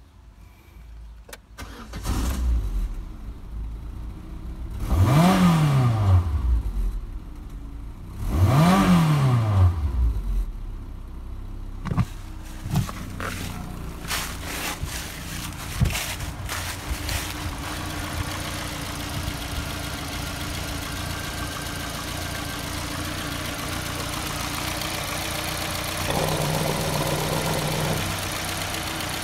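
Renault Laguna's 2.0-litre F3R inline-four petrol engine starting, then revved twice, each time rising and falling in pitch, before settling into a steady idle. A few knocks and clicks come over the idle about halfway through.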